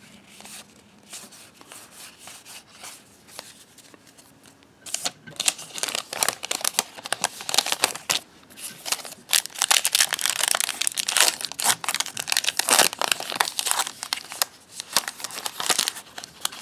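Plastic trading-card pack wrapper crinkling and tearing as it is pulled open, its corner refusing to tear cleanly. Faint handling for the first few seconds, then loud, continuous crinkling from about five seconds in.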